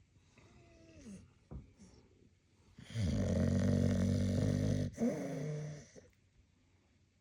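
A sleeping Continental Bulldog snoring. A faint wheezy breath comes first, then about three seconds in one loud, rough snore lasting about two seconds, followed by a shorter whistling exhale.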